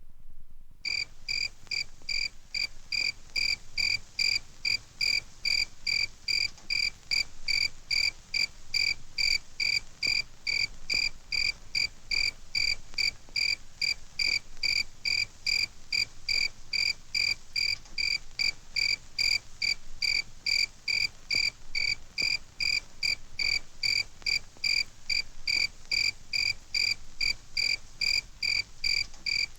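A single cricket chirping in a steady, even rhythm, about three chirps a second, starting just under a second in.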